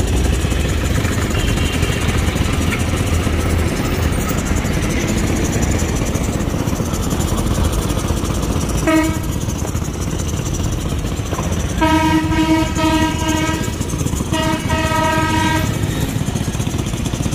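Steady low rumble with a loud horn over it: one short blast about nine seconds in, then two longer blasts close together near the end.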